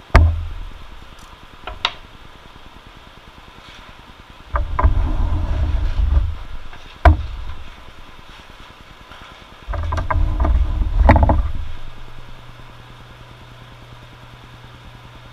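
Handling noise as a cut wooden panel is moved about on a metal saw table: a few sharp knocks and three bursts of low rumbling, the first very short and the other two about two seconds each. A low steady hum comes in near the end.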